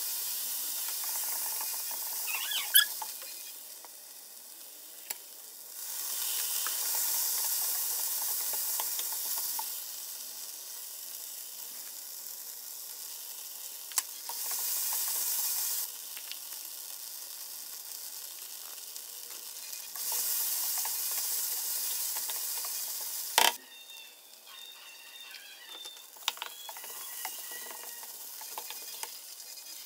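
Chicken and vegetables sizzling in a hot wok as they are stir-fried with a wooden spatula, the sizzle swelling loudly several times for a few seconds each. The spatula scrapes through the food, with a few sharp knocks against the wok, the loudest near the end.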